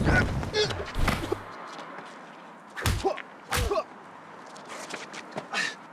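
Punch and body-hit impacts in a scuffle: a heavy hit right at the start and another about a second in, then two more close together around three and three and a half seconds in.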